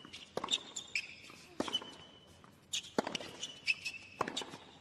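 Tennis rally on a hard court: four sharp racket strikes on the ball about a second and a quarter apart, with lighter ball bounces between them. Short high squeaks of players' shoes on the court come between the shots.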